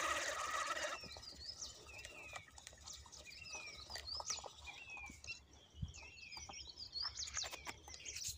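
Birds chirping over and over, short downward-slurred notes several times a second. In the first second a louder whirring from the spinning reel being cranked, winding in line.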